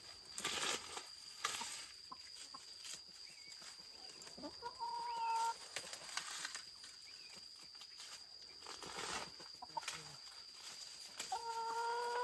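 A chicken calls twice, each a held call of about a second, once about five seconds in and again near the end. Short rustling scuffs come in between.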